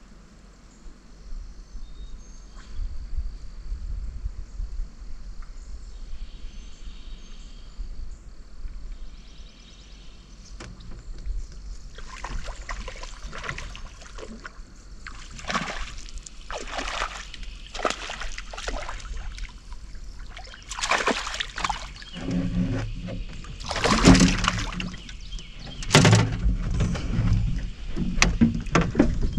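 Water splashing and sloshing around a small fishing boat, with knocks and handling noise in the boat and a low wind rumble on the microphone. It grows busier and louder about halfway through, with the loudest knocks near the end.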